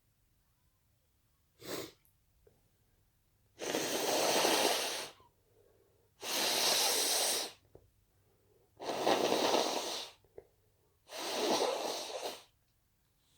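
A person sneezing and breathing hard: a short sharp burst about two seconds in, then four long, noisy blasts of air, each lasting over a second, about two and a half seconds apart.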